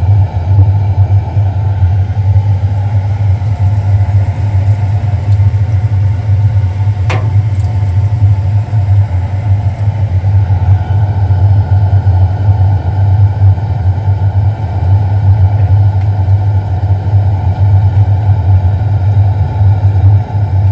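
The boiler of a car wash machine firing steadily, its flue exhaust giving a loud, continuous deep-bass rumble: the burner, just repaired, is holding combustion. A single sharp click about seven seconds in.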